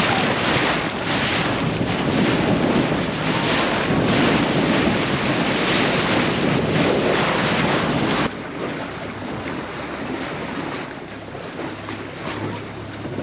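Wind buffeting the microphone and water rushing past the hull of a boat under way at sea, with a faint steady low hum underneath. About eight seconds in, the sound cuts abruptly to a quieter, duller wash of water and wind.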